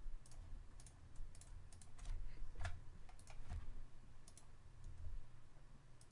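Irregular clicking of a computer mouse and keyboard, some clicks in quick pairs, over a faint low hum.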